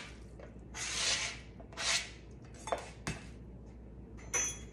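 Chopped spinach scraped off a flexible plastic cutting mat into a glass bowl: two brief scraping swishes, followed by a few light knocks and clinks of dishes and utensils on the counter.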